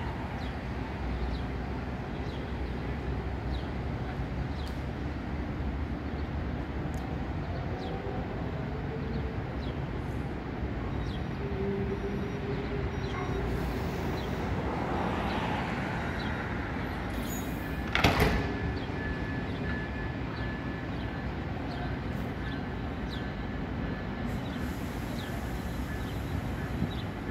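Steady low rumble of a Brightline passenger train standing at the station platform with its doors open. A single sharp knock comes about two-thirds of the way through, and a thin steady high tone holds from then on.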